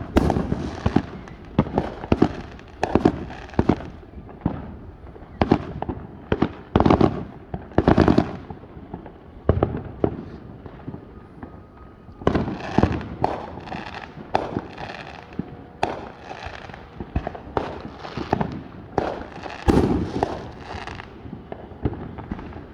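Fireworks going off: a long irregular series of sharp bangs and booms, with a denser run of quick crackling pops in the middle.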